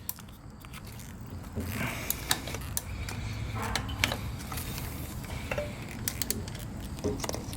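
Ratchet and socket extension working a tight 10 mm intake manifold bolt: scattered sharp metal clicks and a brief creak about two seconds in. The owner thinks the bolt is stripped.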